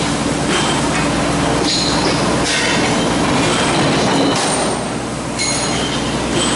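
Hot-forging line running: a steady industrial din with a low hum, repeated hissing blasts each about a second long, and short high metallic squeals.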